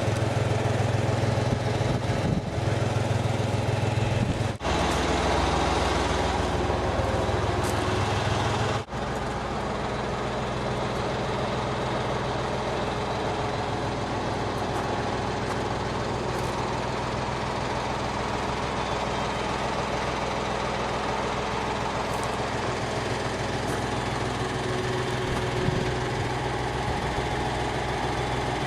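Diesel engine of a Case 580K backhoe idling steadily, a low even hum. It briefly cuts out twice, about four and a half and about nine seconds in, and is a little quieter after the second break.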